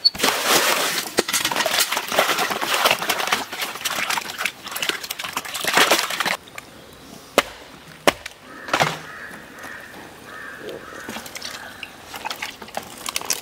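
Water sloshing and splashing in a plastic tub as hands scrub a plucked, gutted duck carcass, stopping suddenly about six seconds in. After that come a few separate sharp knocks and quieter handling sounds.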